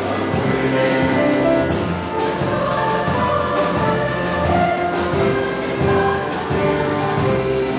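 Choral music: a choir singing held chords, with low drum beats underneath.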